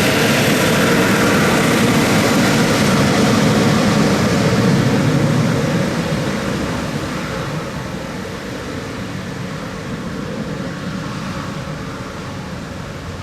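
Embraer ERJ-195LR's twin GE CF34-10E turbofan engines at takeoff thrust: a loud, steady jet noise that begins to fade about five seconds in and keeps fading as the aircraft moves away.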